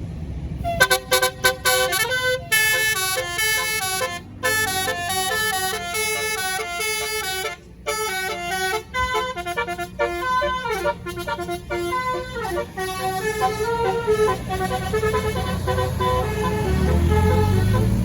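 A bus's Basuri telolet horn, a multi-tone musical air horn, playing a quick tune of stepped notes for about twelve seconds, with two brief breaks. The notes then thin out while the bus engine rumbles louder near the end.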